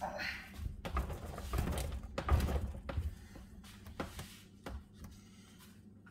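Irregular metal knocks, clinks and scrapes from working a steel mower lift lever clamped in a bench vise while bending it, dying away near the end.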